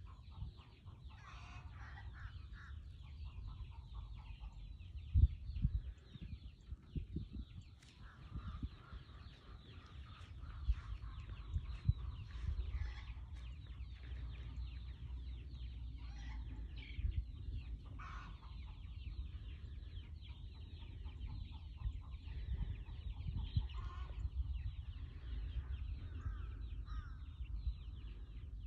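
Chickens clucking and squawking in short calls every few seconds, over a low rumble of wind on the microphone with a few loud buffets.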